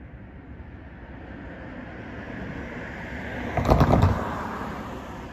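A sedan driving past across the railroad crossing: its tyre noise builds as it approaches, a few quick knocks come as its tyres go over the rails about four seconds in, and then it fades away.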